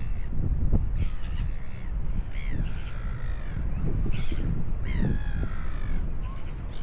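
A series of about six harsh bird calls, several sliding down in pitch, over wind buffeting the microphone.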